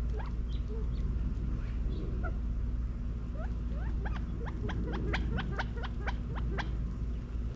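California quail calling: a few faint notes, then a run of about a dozen short, sharp rising chirps that speed up over two to three seconds, over a steady low rumble.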